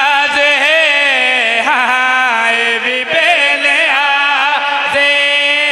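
A male zakir singing a line of a Punjabi qasida in long, drawn-out notes that waver and glide, with short breaths between phrases.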